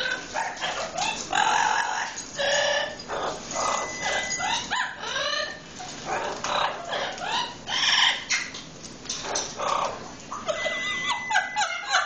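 A yellow-headed Amazon parrot imitating a dog, giving a rapid string of bark- and yip-like calls that slide in pitch. A short steady whistle comes in twice.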